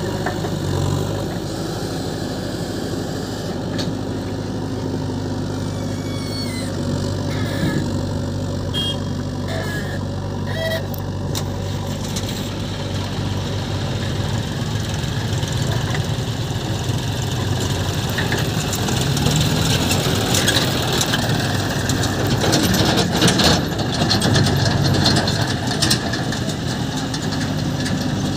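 Diesel engines of a JCB backhoe loader and a John Deere tractor running steadily while the backhoe scoops and dumps soil into the tractor's trolley, the sound growing louder and rougher with some clatter in the second half.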